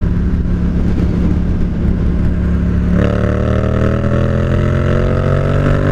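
Yamaha FZ-07's 689 cc parallel-twin engine running under way, steady at first; about three seconds in the throttle opens and the engine note climbs slowly as the bike accelerates.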